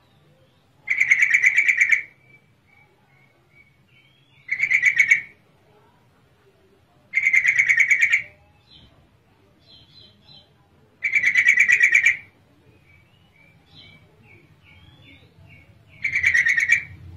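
Female yellow-vented bulbul calls of the kind played to draw males to answer: five loud, rapid pulsing calls about a second long, every three to four seconds, with soft short chirps between them.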